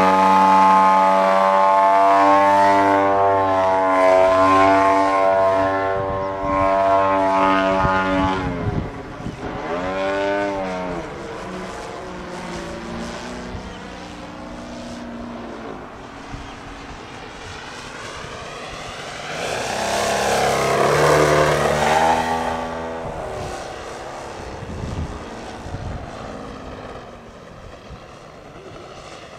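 Desert Aircraft DA-60 two-stroke gasoline engine and propeller of a large radio-controlled Yak 55M aerobatic model, running loud at high throttle while the plane hovers nose-up in a torque roll. About eight seconds in, the engine note swings up and down with throttle changes, then fades as the plane climbs away. It swells again around twenty seconds in as the plane passes nearer, and fades toward the end.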